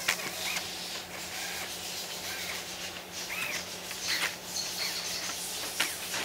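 Cordless drill-driver run in short trigger pulls, each a brief whine that rises and falls in pitch, running down transmission oil pan bolts, with a few sharp clicks of the socket on the bolts.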